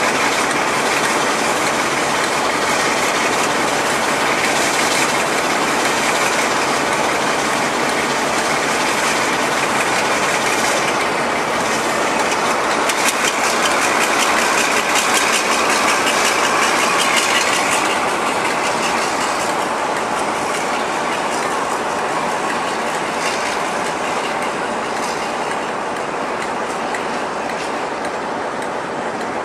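Class 52 'Western' diesel-hydraulic locomotive D1009 moving slowly over curved station trackwork, its twin Maybach diesel engines running under a steady clatter of wheels over rail joints and pointwork. There is a run of sharper clicks about halfway through.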